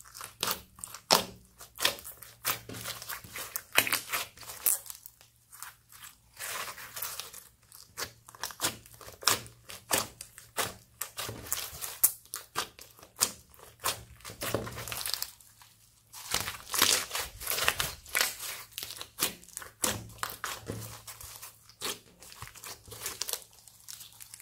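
Hands kneading and squeezing a large lump of clear slime mixed with foam beads, making dense, irregular sticky crackles and squelches with a few brief quieter pauses.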